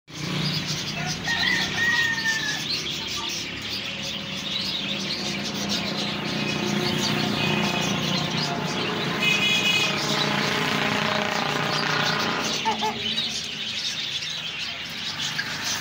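Polish rooster crowing, a long drawn-out call through the middle, among chirps from other birds.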